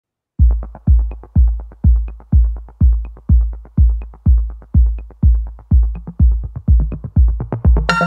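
Electronic intro music: a steady kick drum beat about twice a second with quick ticks between the beats, starting after a brief silence; a bright synth melody comes in near the end.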